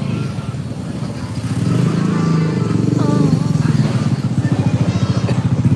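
Motor scooter engine running close by, its fast firing pulses growing louder about two seconds in as it is revved. Faint voices come through briefly.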